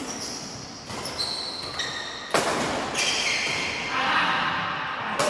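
Badminton rally in a reverberant tiled hall: rackets striking the shuttlecock, with the sharpest hit a little over two seconds in, amid short high squeaks of shoes on the tile floor.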